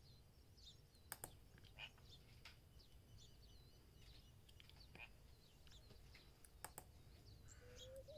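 Near silence, with a few faint scattered clicks as alligator-clip leads are handled, and faint bird chirps in the background.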